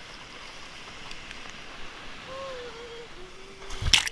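Shallow surf washing and rushing around a bodyboard being towed through the water. Near the end, a loud splash as a wave of water breaks over the board and its camera.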